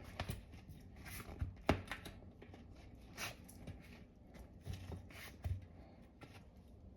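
A new rubber tire being worked by hand onto a bicycle wheel rim: scattered rubbing and light knocks, the sharpest about two seconds in.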